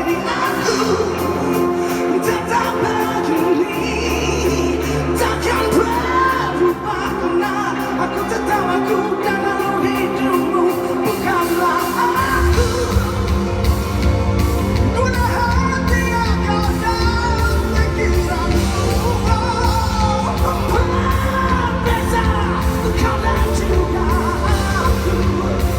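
Pop-rock band music with a singer's voice. About halfway through, a heavier, driving drum and bass beat comes in.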